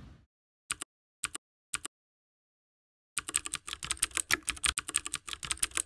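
Computer-keyboard typing sound effect. Three quick double clicks come first, then a rapid run of key clicks lasting about three seconds that cuts off sharply.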